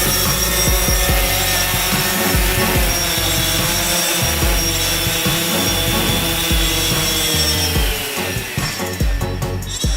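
DJI Phantom 3 Standard quadcopter's four motors and propellers whining steadily in flight, the pitch dropping about seven seconds in as the throttle eases.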